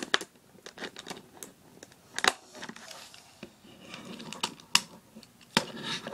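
Plastic parts of a Transformers Deluxe Class Roadbuster figure clicking and snapping as they are pushed into place, over soft handling scrapes; a scatter of sharp clicks, the two loudest about two and a half and five seconds in.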